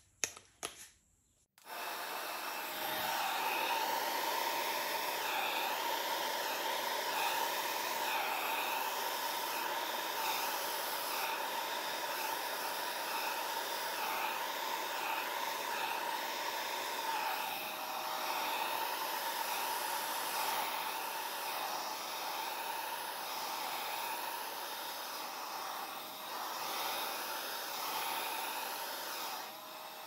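Deliya handheld hair dryer on its cool setting at high speed, starting after a few faint clicks about a second and a half in and then running steadily with a whine over its rushing air, wavering slightly as it is moved about. It drops down a little near the end.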